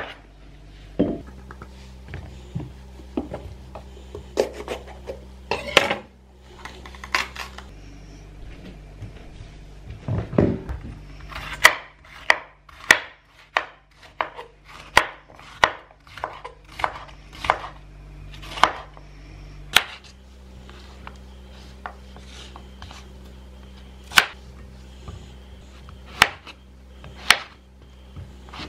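Chef's knife slicing zucchini and red bell pepper on a bamboo cutting board: sharp knocks of the blade hitting the wood, scattered at first, then a more regular run of strokes from about twelve seconds in.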